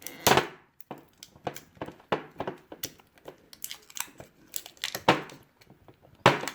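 Packaging being handled: a run of short crinkles, rustles and clicks, with a louder one just after the start and another near the end.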